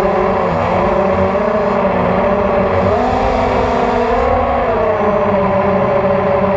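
Hexacopter's brushless motors and propellers whining in flight, heard from the craft's onboard camera. Several tones move up and down together as the throttle changes, rising about three seconds in and again a little after four seconds.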